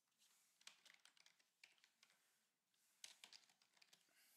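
Faint computer keyboard typing: scattered keystrokes in a few small clusters.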